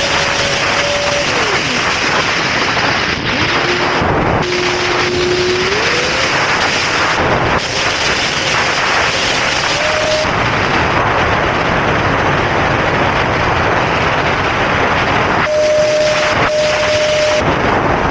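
E-flite Habu STS 70mm electric ducted fan in flight, heard from an onboard camera: a loud rush of wind over the microphone with the fan's whine on top. The whine drops in pitch about a second in, stays low, climbs back around six seconds in, and holds high near the end.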